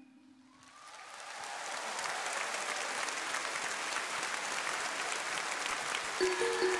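Audience applause rising over about a second as the last note of a song fades, then steady clapping. Near the end a few held musical notes come in over it.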